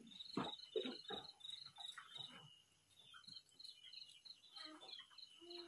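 Cricket chirping at night: a high, even chirp repeated about four times a second, with a short break near the middle. A few faint knocks in the first half.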